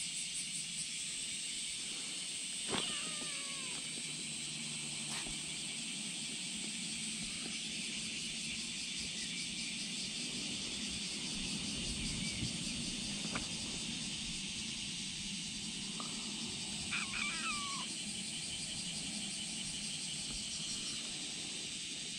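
Kittens mewing: one short, high, falling mew about three seconds in and a quick run of three mews around seventeen seconds, over a steady high outdoor hiss.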